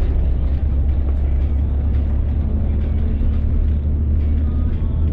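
Steady low rumble of road and engine noise inside a moving road vehicle as it drives along.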